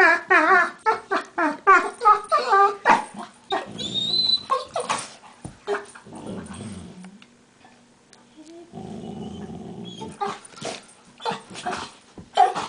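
Two dogs play-fighting with a string of quick, wavering, high yelps and whines in the first few seconds, the strange monkey-like noises of the play fight. Low growling follows in the middle, with a brief lull, and more sharp yips come near the end.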